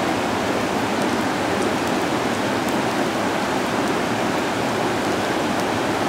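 Floodwater of an overflowing creek rushing past in a steady, loud torrent.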